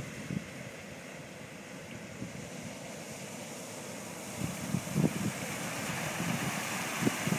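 Wind buffeting the microphone in irregular gusts over a steady rushing hiss, which grows louder about two-thirds of the way through.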